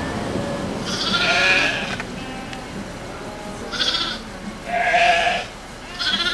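Young goats bleating, about four separate wavering calls.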